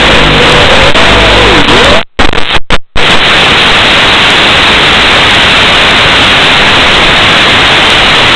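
Loud, even static hiss from an analog FPV video link's audio channel, the quadcopter down and disarmed in the grass with a weak signal. In the first two seconds the quad's motors whine and waver in pitch as it flies low; around two seconds in the sound cuts out in a few short gaps before the hiss takes over.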